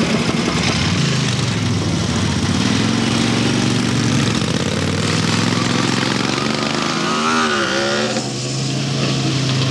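Several motorcycle engines running and idling in street traffic. One revs, its pitch rising and falling sharply about seven seconds in as a bike pulls away.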